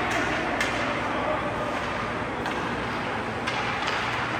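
Ice hockey game sounds in a rink: a steady arena din broken by a few sharp clacks, typical of sticks striking the puck.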